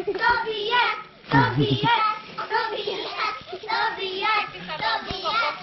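Children's high-pitched voices calling and chanting in a sing-song way, with a brief lull about a second in.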